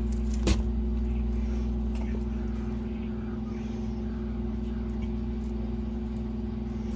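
A steady low mechanical hum with two constant tones, broken by a single sharp click about half a second in.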